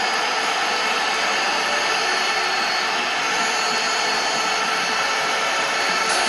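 Steady stadium crowd noise, a dense, even wash of many voices with no single voice standing out.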